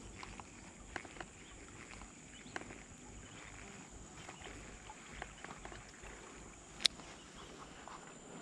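Quiet outdoor ambience with a steady high thin whine, scattered faint ticks, and one sharp click about seven seconds in.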